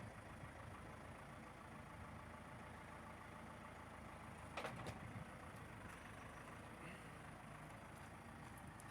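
An engine idling faintly and steadily, with a short clatter about halfway through.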